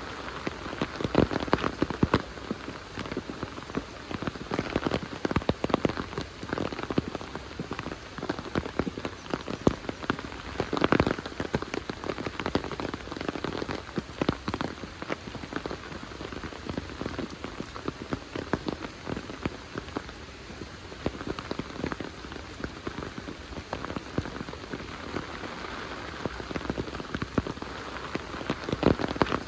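Heavy rain falling steadily, with many close drops striking irregularly.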